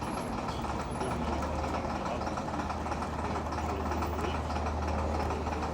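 Heavy engine of a vintage bus running steadily, a deep low hum with a broad mechanical clatter above it, strongest from about a second in until near the end.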